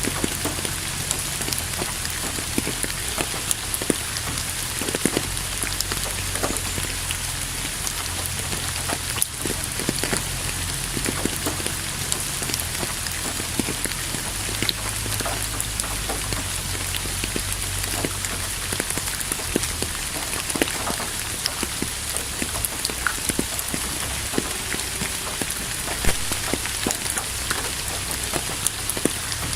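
Steady rain falling, with many close drops ticking on a surface over an even hiss and a low rumble underneath.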